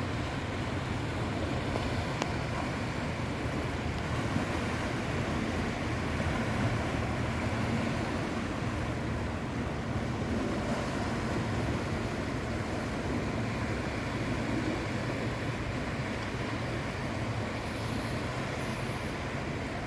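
Sea waves washing on the shore in a steady, continuous rush with a deep low rumble underneath.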